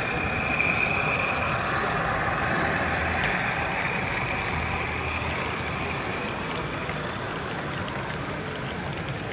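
Model railway train running past: a model Class 31 diesel locomotive hauling a rake of covered hopper wagons, a steady mechanical running sound.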